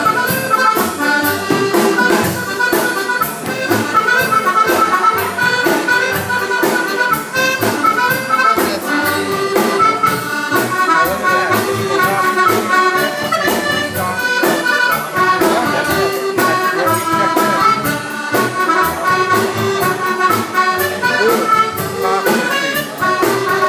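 Live band music: a drum kit keeping a steady, busy beat under a held, reedy melody line.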